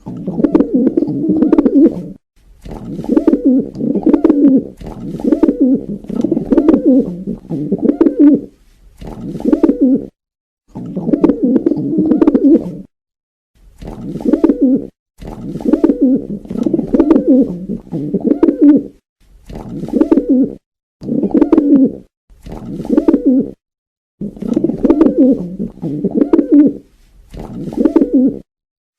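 Pigeons cooing loudly: a long string of low, warbling coo phrases, each a second or two long, separated by short silent gaps.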